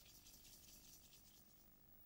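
Near silence between two stretches of narration: only faint hiss and hum.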